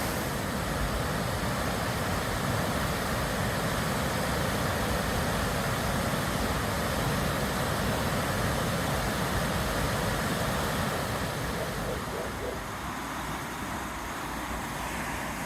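Steady rushing noise of a swollen, snowmelt-fed river mixed with road traffic rumble, easing a little after about eleven seconds.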